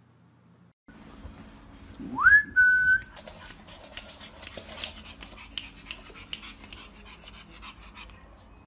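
A high whistle slides up and holds steady for about a second, followed by a run of quick clicks and scratchy noises as a pug moves about.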